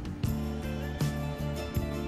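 Background instrumental music with held chords and a regular beat.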